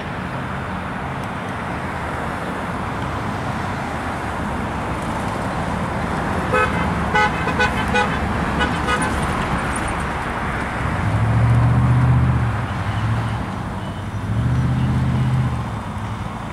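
A horn gives a run of about six short, quick toots over a steady rumble of engines and road traffic; afterwards a low engine rumble swells up twice.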